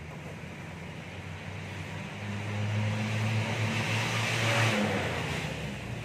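A motor vehicle driving past. Its low engine hum and road noise swell about two seconds in, are loudest around four and a half seconds, then fade away.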